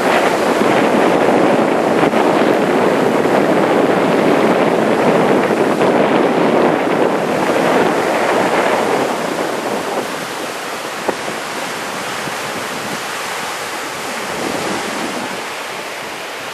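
Large typhoon-driven surf breaking and washing up the beach, a steady noise with wind buffeting the microphone. It eases slightly after about ten seconds.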